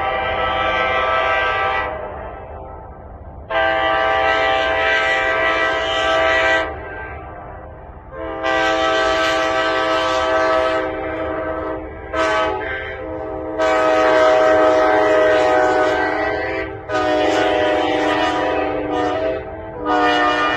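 Nathan K5HA five-chime train horn blown in a series of chorded blasts. They include a long, long, short, long sequence, the pattern of a grade-crossing signal, followed by another long blast, a short toot and a new blast near the end.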